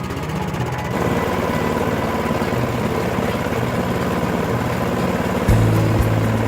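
Tecumseh Snow King snowblower engine running steadily, getting stronger about a second in. The owner judges it a little low on power and in need of a carburetor rebuild. Background music comes in over it near the end.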